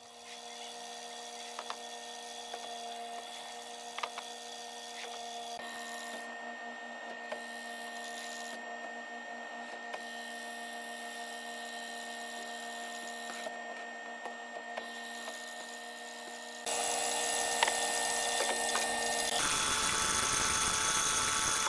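Hollow-chisel mortiser running with a steady motor hum while its square chisel bores into a hardwood block, with a few light knocks. The sound turns louder and harsher about three-quarters of the way through.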